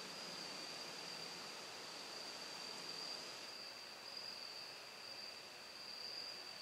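Quiet room tone: a faint steady hiss with a thin, steady high-pitched whine.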